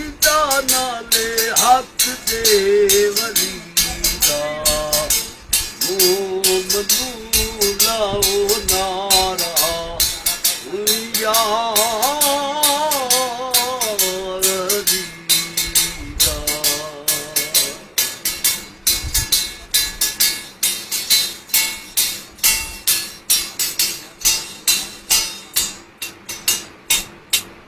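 A man sings a devotional chant in long, wavering lines, keeping time with a fast, steady jingling beat struck on a chimta (long metal fire tongs with rings). The singing stops a little past halfway, and the chimta beat carries on alone.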